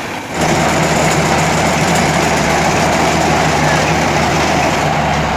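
Osaka rice combine harvester running steadily, its engine and threshing mechanism working as paddy is fed into the header. The steady machine noise comes in suddenly about half a second in.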